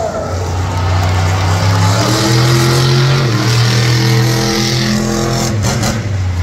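Avenger monster truck's engine revving as it drives across the dirt track. Its pitch rises about two seconds in, holds high, then drops off near the end.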